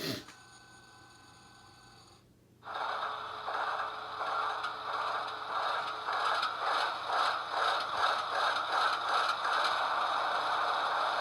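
Sound decoder of an HO-scale Athearn Genesis ES44DC model playing a GE diesel locomotive engine start-up through the model's small speaker when track power is applied. It begins a little under three seconds in and grows louder with a regular pulse as the engine comes up to run.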